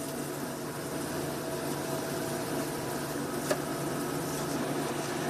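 Steady mechanical hum of food-truck kitchen equipment, such as a vent hood fan or generator, running at an even pitch. One sharp knock about three and a half seconds in.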